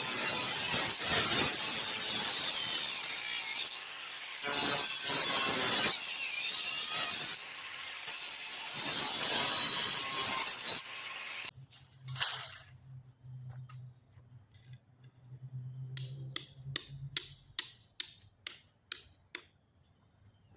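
A tool cutting into wood, in three loud stretches with two short breaks, stopping abruptly about eleven seconds in. It is followed by a faint low hum and a quick series of clicks.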